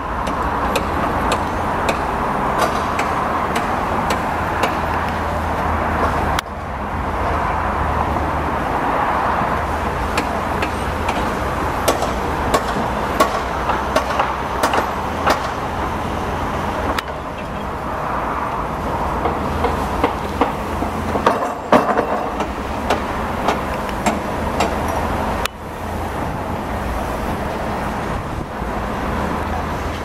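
Heavy diesel truck machinery running steadily, with scattered clicks and knocks over a deep engine rumble; the sound shifts abruptly a few times as shots change.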